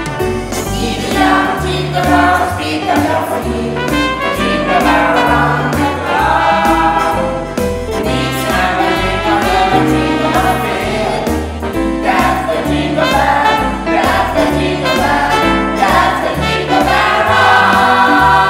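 A Christmas song arrangement: several voices singing together over a piano accompaniment with a steady bass line.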